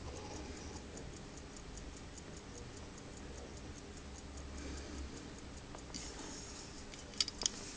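An 1897 American Waltham pocket watch ticking steadily with its case open, about five ticks a second, its antique movement in working order. A few louder clicks near the end as the watch is handled.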